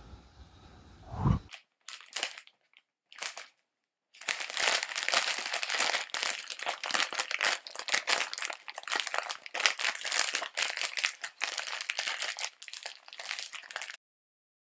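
Dense, irregular crumpling and crinkling noise, like material being scrunched. It starts with two short bursts, runs steadily from about four seconds in, and cuts off abruptly near the end. Before it, a brief stretch of outdoor rumble ends in a thump about a second in.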